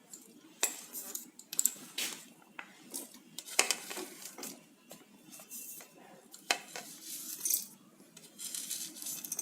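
Whole spices and small ingredients being tipped one by one into a mixer-grinder jar, with small bowls and spoons knocking against it: an irregular string of light clicks and clatters.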